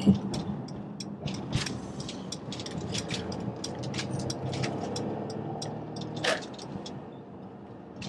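Steady road and engine noise inside a moving car's cabin, with soft, irregular whispering over it: a prayer said under the breath.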